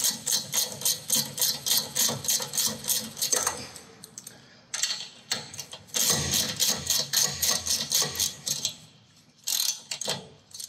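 Socket ratchet clicking in quick, even runs as the nut on a new track rod end's ball joint is tightened. The clicking stops about three and a half seconds in, starts again around six seconds, and comes once more in a short burst near the end.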